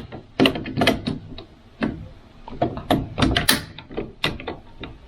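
Irregular clicks and knocks as a wire is worked into the terminal of a fuse holder in a fuse box, with hard handling taps and scrapes between them.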